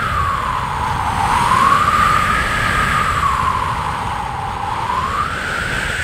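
Howling wind sound effect: a hollow whoosh whose pitch slowly rises and falls, over a low rumble.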